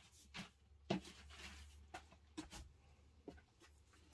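Faint, scattered knocks and clicks, seven or so in four seconds, over a low steady hum: footsteps and handling noises of a person coming back to the workbench.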